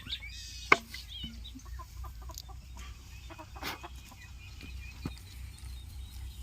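Chickens clucking now and then, with one sharp click just under a second in.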